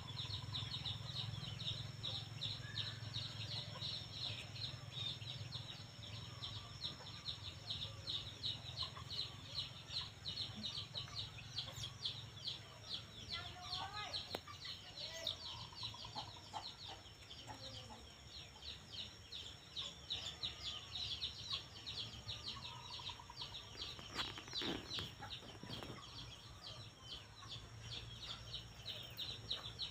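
Outdoor ambience: a steady, fast, high-pitched pulsing chorus, with a few fainter, lower wavering calls now and then.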